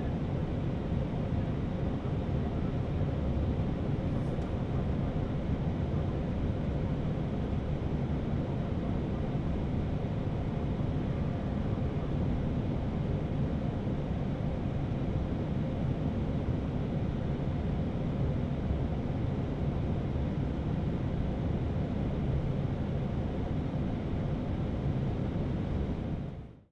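Steady cockpit noise of an Airbus A319 taxiing in on idling engines, an even low rumble with a hiss over it, fading out quickly near the end.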